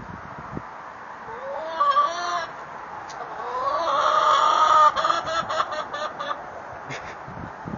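Hen clucking: a short call about two seconds in, then a long, drawn-out call that rises and holds, followed by a quick run of short clucks.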